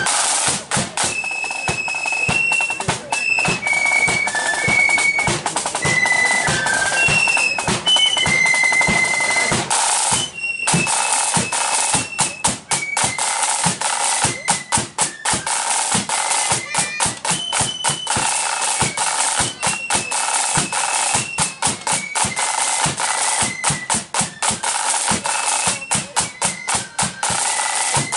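Marching flute band playing: flutes carry a high melody over steady snare drumming. The music breaks off briefly about ten seconds in, then the snare drums come back in with the flutes.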